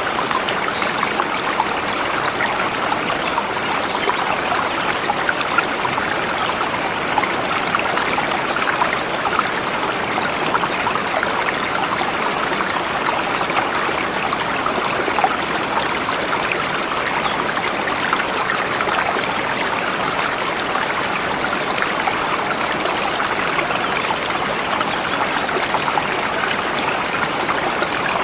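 Forest river flowing steadily over rocks: an even, unbroken rush of running water.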